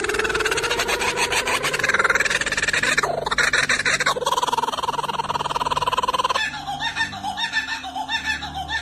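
A bird giving long, buzzy, rapidly pulsed calls that hold a pitch. About six and a half seconds in, these give way to a series of short, choppy repeated notes.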